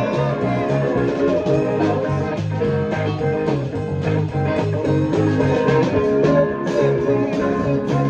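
Rock band rehearsing a song: a fingerstyle electric bass playing a repeating low line, with electric guitar and a steady run of drum hits.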